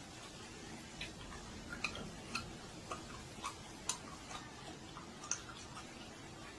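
A dozen or so faint, irregular clicks, roughly two a second, over a low steady hiss.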